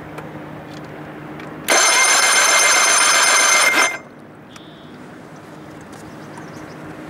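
Electric starter cranking a 1987 Johnson 70 hp three-cylinder outboard for about two seconds, with the spark plugs out and a compression gauge on the top cylinder. It starts and stops abruptly, a steady whirring buzz as the engine spins freely.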